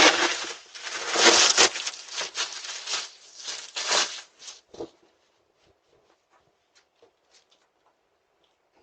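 Loud rustling and crinkling noise that fades out about five seconds in, followed by a few faint clicks.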